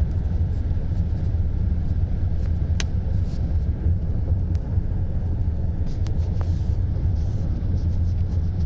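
Car driving slowly over a rough, broken road: a steady low rumble from the car and road, with a few short sharp knocks or rattles, about three seconds in and again around six seconds.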